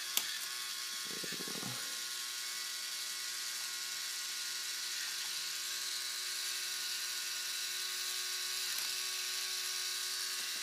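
Small K'nex electric motor whirring steadily as it turns a helix ball lift, with a single sharp click just after the start.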